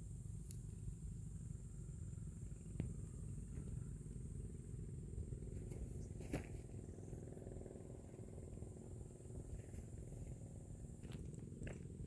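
Wind rumbling on a phone microphone in the open, with a few faint clicks.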